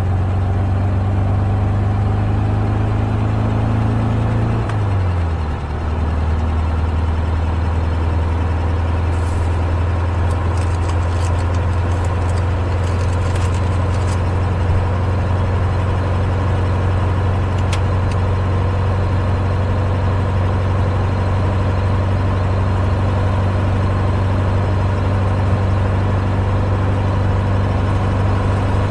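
Air-cooled flat-four engine of a 1972 Volkswagen Super Beetle cruising on the highway, heard from inside the cabin along with road noise. The engine note falls once, about five seconds in, then holds steady. Faint crinkling of a plastic bag in the middle.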